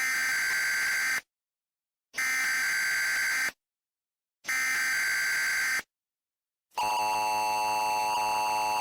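Emergency Alert System header: three short bursts of screeching data tones about a second apart, then the steady two-tone attention signal starting about seven seconds in.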